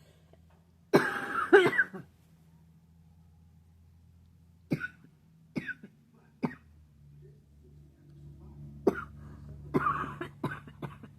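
A person coughing from seasonal allergies: a harsh fit of several coughs about a second in, then three single coughs about a second apart, and another run of coughs near the end.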